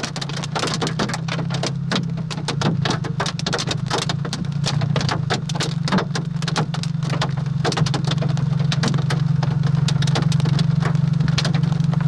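Hailstones and rain pelting a vehicle in dense, irregular clicks, over a steady low engine hum that grows a little louder in the second half.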